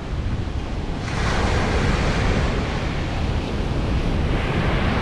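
Ocean surf breaking and washing up the beach, with wind buffeting the microphone in a steady low rumble. The rush of the surf swells about a second in and stays up.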